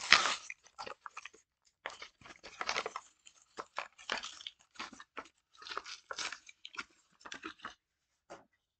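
A Hot Wheels blister pack being torn open by hand: the plastic blister and cardboard backing card crackling and ripping in irregular bursts that stop near the end.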